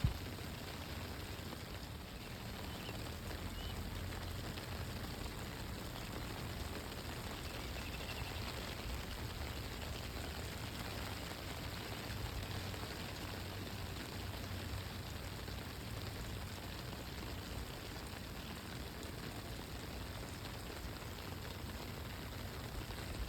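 Steady rain falling: an even hiss of drops with a low rumble underneath.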